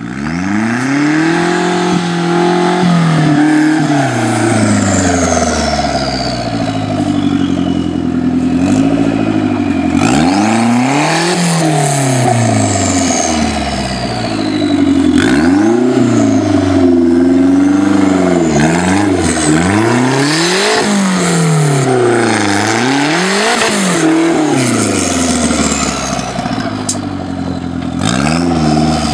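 Off-road buggy's engine revved hard over and over as it climbs a steep dirt gully, its pitch rising and falling every second or two.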